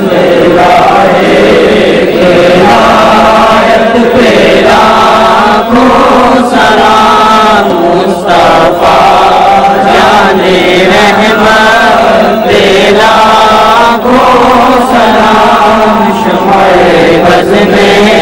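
Group of men's voices chanting an Urdu salam, the devotional salutation to the Prophet, together and unaccompanied. The chant is loud and unbroken, with slow, drawn-out melodic lines.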